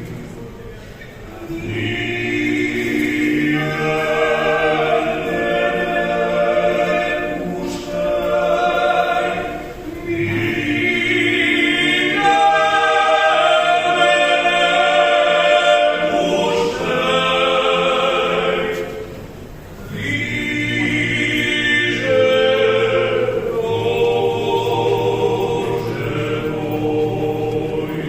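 A cappella choir singing in several-part harmony, in long held phrases separated by short pauses.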